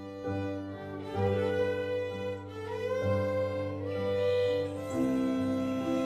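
Bowed string music: a violin melody with gliding notes over sustained lower string notes that change every second or so.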